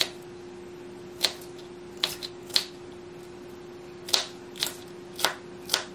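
Sharp kitchen knife dicing a green bell pepper on a plastic cutting board: about nine crisp chops at uneven intervals, with a faint steady hum underneath.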